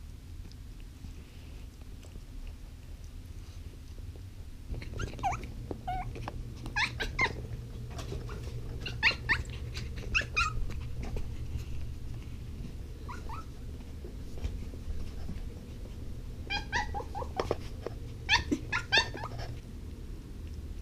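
Pomeranian puppy whining in short, high-pitched whimpers that come in several clusters, more of them near the end. He is frustrated at a ball too big to get into his mouth. A steady low hum runs underneath.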